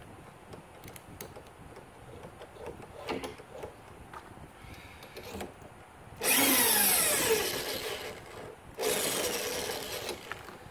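Old corded drill spinning a case trimmer's cutter against the mouth of a brass rifle case, trimming it to length. It runs in two bursts, about two and a half seconds and then about one and a half, and the first winds down with a falling pitch. Before that come small clicks as the case is handled and fitted into the holder.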